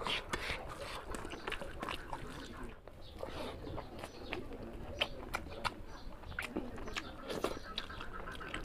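Close-up eating sounds: wet chewing and lip smacking with many short, sharp clicks at irregular intervals.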